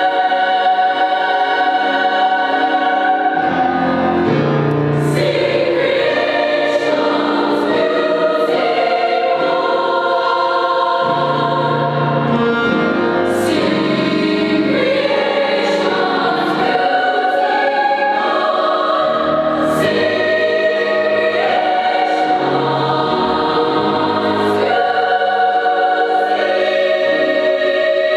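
Large girls' choir singing in parts, holding sustained notes through changing chords without a break.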